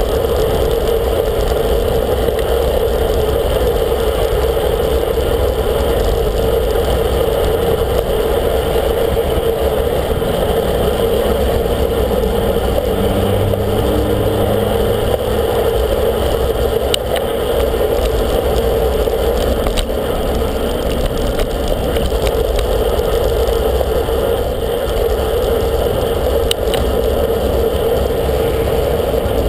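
Road bike riding fast beside car traffic: a steady rush of wind and road noise on the bike-mounted camera's microphone, with car engines passing alongside and a couple of brief clicks in the second half.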